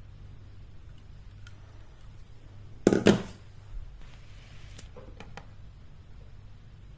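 A short double knock, the loudest sound here, about three seconds in as a model cruise ship is set down on a tabletop, followed a couple of seconds later by a few light clicks from handling it.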